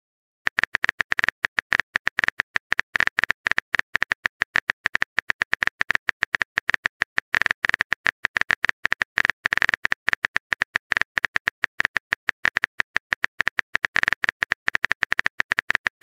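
Typing sound effect: a fast, steady run of keyboard clicks, several a second, starting about half a second in.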